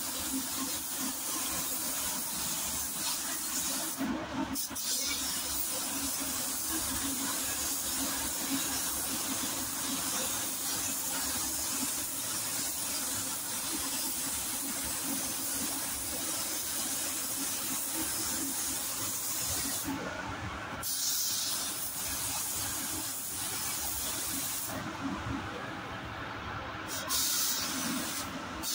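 Gravity-feed spray gun hissing steadily as compressed air atomises paint onto a car body panel. The hiss breaks off briefly a few times as the trigger is let off, over a steady low hum.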